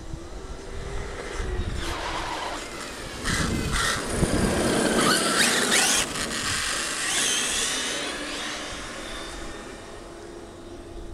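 Radio-controlled car driving past on asphalt: its motor whine and tyre noise build up, are loudest about three to six seconds in, then fade as it drives away.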